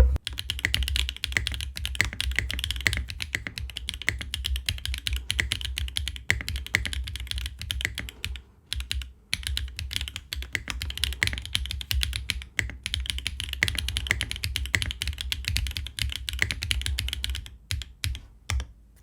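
Typing on a Qwertykeys QK60 R3 mechanical keyboard built with HMX White Fox switches, GMK Yeeti keycaps and a carbon fiber plate: a fast run of clacky keystrokes, with brief pauses about halfway through and near the end.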